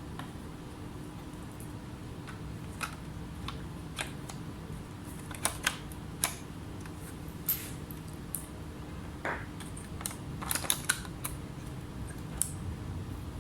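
Irregular light clicks and taps, about a dozen, spread unevenly and thickest in the middle, over a steady low hum.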